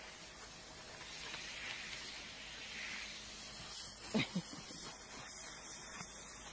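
Garden hose spray nozzle hissing steadily as it sprays water over horses, with a brief squeak about four seconds in.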